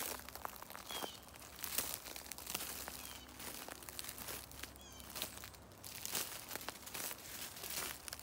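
Footsteps crunching and rustling through dry leaves and brush, an uneven run of crackles. A bird chirps briefly about three times.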